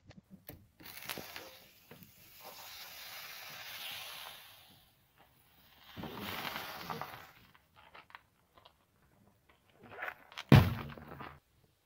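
Car tyre rolling over small cardboard drink cartons, the cartons crackling and crunching as they are squashed and juice squirts out. Scattered sharp clicks near the end, then a sudden loud burst as a carton gives way.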